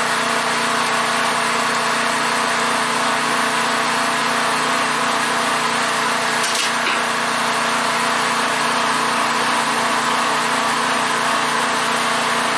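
Portable generator engine running steadily, with one faint tick about halfway through.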